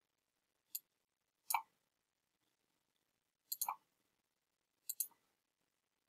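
Computer mouse clicks with silence between them: two single clicks in the first second and a half, then two quick double clicks later on.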